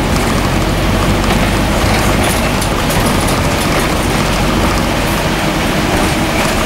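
Scania N230UD double-decker bus on the move, heard from the upper deck: its five-cylinder diesel engine running with steady road and tyre noise.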